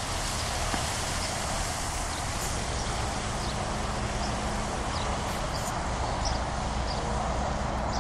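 Steady rushing noise of floodwater.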